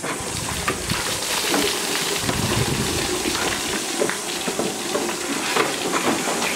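Water pouring from large plastic bottles over people's heads and splashing down onto wetsuits and concrete: a steady splashing rush with small scattered spatters.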